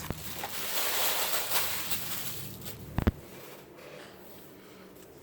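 Paper and packaging rustling and crinkling as stationery items are handled, with one dull thump about three seconds in, after which the rustling fades to faint handling.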